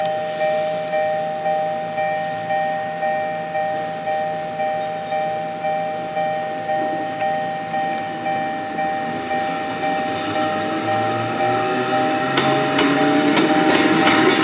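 Level-crossing warning bell ringing in a steady repeat, just under two strikes a second. From about ten seconds in, the rising motor whine and growing wheel noise of an approaching electric train, Kotoden's retro car No. 300, come in under it and get louder toward the end.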